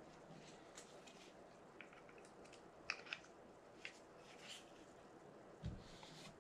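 Faint clicks and light taps of a Penn Spinfisher 440SSG spinning reel's parts being handled as its main gear and handle are fitted back into the housing, with a few sharp clicks about three seconds in and a soft thump near the end.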